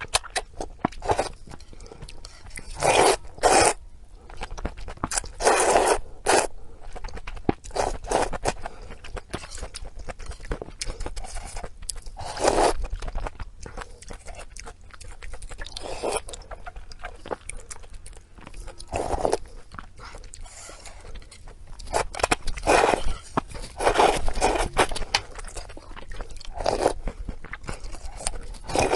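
Close-miked chewing and biting of pork intestines: a steady run of short wet, crunchy clicks, with louder bites every few seconds.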